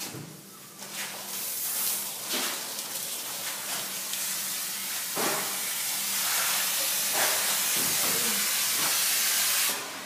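Lit handheld smoke grenade hissing steadily as it pours out smoke, building about a second in and dropping off just before the end.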